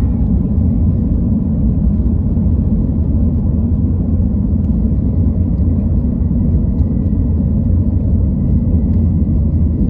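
Car driving: a loud, steady low rumble.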